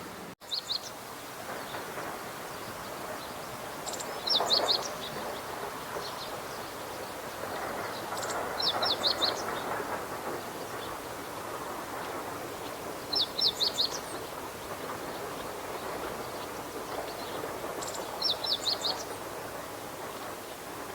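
Meadow bunting singing: four short, high song phrases of quick sweeping notes, repeated about every four and a half seconds over a steady background rush.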